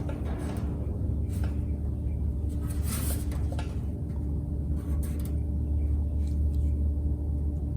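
A steady low hum, such as a shop fan or other running machine makes, with a few faint light taps and scrapes over it.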